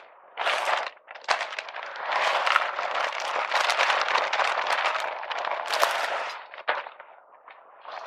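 Dense crackling rustle: a short burst about half a second in, then a longer continuous stretch from about two to six seconds.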